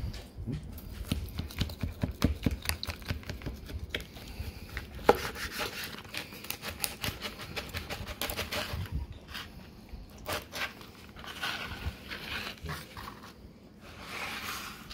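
Large knife slicing through a grilled porterhouse steak on a wooden cutting board: the seared crust crunching under repeated sawing strokes, with many short clicks and a sharp knock about five seconds in.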